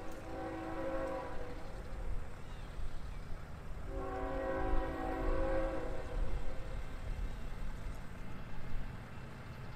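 CSX freight locomotive's multi-chime air horn sounding two long blasts for a grade crossing: the first ends about a second and a half in, the second runs from about four to six seconds in. A steady low rumble runs underneath.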